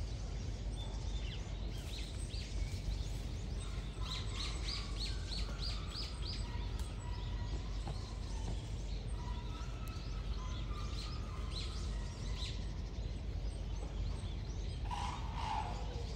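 Outdoor ambience: a steady low rumble with small birds chirping, including a run of quick repeated chirps, about three a second, some four to six seconds in. A short, louder call comes near the end.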